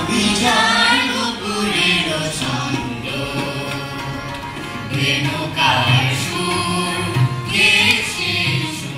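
A mixed group of children and adults singing a Bengali song together in chorus, with musical accompaniment.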